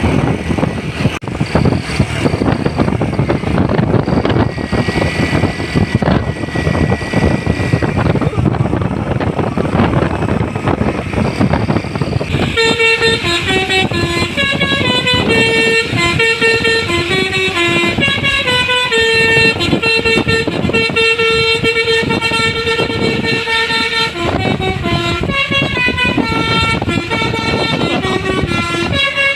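Loud road and engine noise, then about twelve seconds in a bus's telolet 'basuri' musical horn starts playing a tune, its steady horn notes stepping up and down in pitch and holding on to the end.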